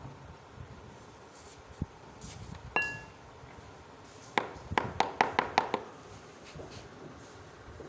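Small metal parts clinking: one ringing clink, then a quick run of about seven sharper clinks over a second and a half.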